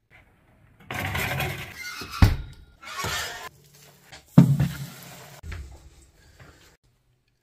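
A metal baking tray handled at an oven: rustling and scraping noises with two sharp clunks, one a little after two seconds in and one just past four seconds.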